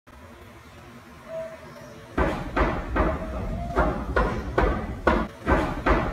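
Loud, repeated banging on a wooden door, about two or three blows a second, starting about two seconds in.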